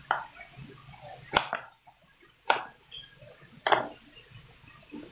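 Kitchen knife slicing carrot into strips on a cutting board: sharp chopping knocks about a second apart, five in all, two of them in quick succession.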